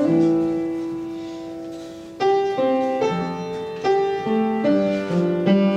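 Solo piano music: a chord is struck and left to fade for about two seconds, then the playing moves on through a series of notes and chords.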